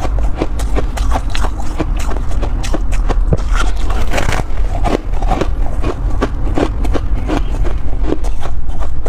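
Close-miked biting and chewing of freezer frost: a dense run of irregular crisp crunches, several a second.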